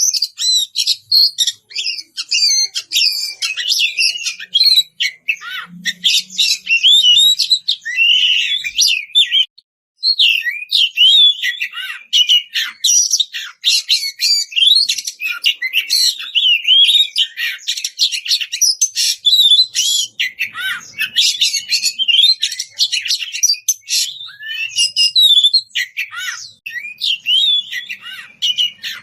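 Oriental magpie-robin (kacer) singing a long, rapid, varied song of whistles and chirps with barely a pause, breaking off for about half a second about a third of the way in. It is a challenge song, calling out to a rival.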